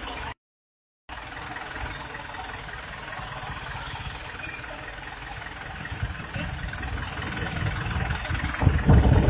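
Steady low rumble of idling vehicle engines. The sound drops out completely for under a second near the start, and the rumble grows louder toward the end.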